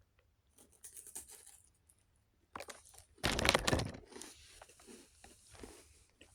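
Crunching into a small cracker topped with tuna salad and chewing it close to the microphone: a few faint crackles, then a loud burst of crunching about two and a half seconds in that fades into softer crackly chewing.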